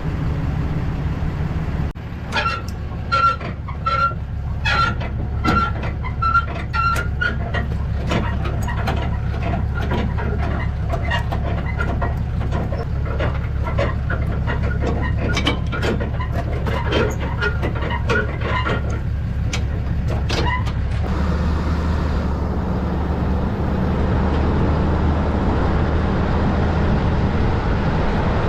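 Truck running with a steady low engine and road rumble. Through most of the first two-thirds there is a string of short sharp clicks and chirps, about one or two a second. Near the end these stop and the rumble becomes a smoother, even hum.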